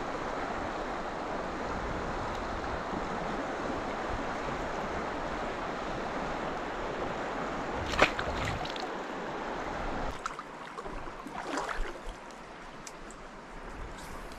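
Steady rush of flowing river water, with one sharp knock about eight seconds in. The rush turns quieter about two seconds later, with a few brief rustles.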